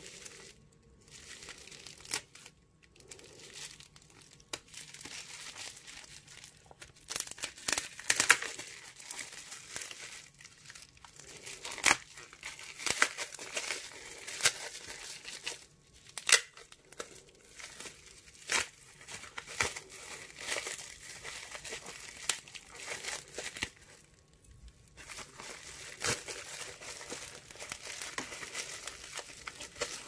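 Plastic bubble wrap being slit open with a folding knife and pulled off a small cardboard box, crinkling and tearing irregularly with sharp crackles.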